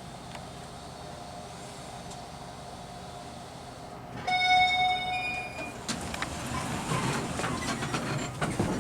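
Elevator cab running with a steady hum. About four seconds in, a loud electronic arrival chime sounds: one held tone, then a short higher one. After that the doors rattle and click as they open.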